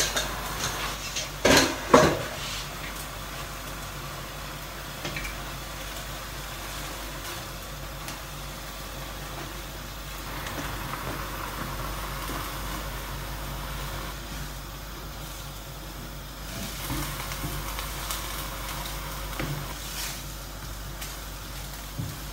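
Rice noodles and vegetables sizzling in a wok over a gas flame, a steady hiss throughout. Two loud knocks come within the first couple of seconds as the noodles go in.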